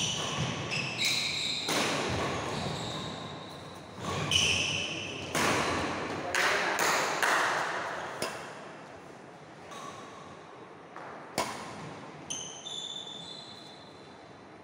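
Badminton rally in a large echoing hall: sharp racket-on-shuttlecock hits and short squeaks of shoes on the wooden court floor. They come thickest in the first half and then thin out to a few squeaks and one last hit.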